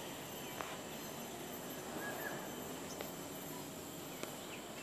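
Faint outdoor ambience: a steady high-pitched insect drone, a short bird chirp about two seconds in and another near the end, and a few faint clicks.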